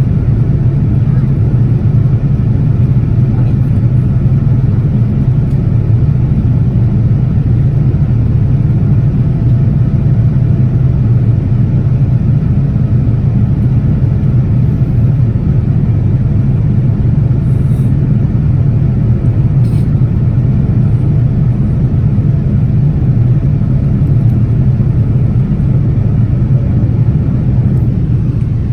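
Cabin noise of a Boeing 787-10 airliner climbing after takeoff: the engines and the air rushing past the fuselage make a steady, low-pitched noise that does not change.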